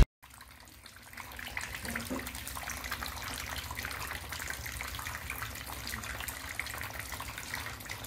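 Small homemade plastic-bottle fountain running: thin streams of pumped water splashing and trickling into a basin of water and pebbles. The splashing grows louder about a second in, then stays steady.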